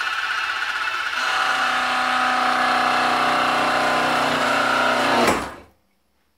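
Sieg X1 mini mill's motor and spindle running steadily, growing louder and fuller about a second in, then switched off about five seconds in and winding down quickly to silence.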